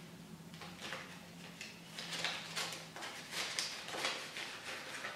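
Paper banknotes rustling and a clear plastic zipper pouch crinkling as cash is handled and slipped into a binder: a run of short, irregular rustles and scrapes, busier from about two seconds in.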